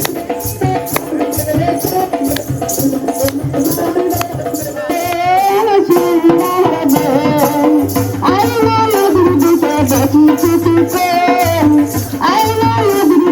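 Background music with a shaker keeping a steady rattling beat; a wavering melody comes in about five seconds in, and a low pulsing beat joins about eight seconds in.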